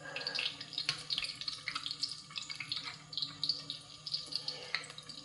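Hot oil sizzling and crackling steadily around pastry hand pies deep-frying at about 370 °F, with a couple of sharper clicks.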